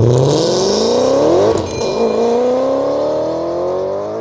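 Drift car's engine revving hard, its pitch climbing, dropping briefly about a second and a half in, then climbing again. It grows fainter near the end.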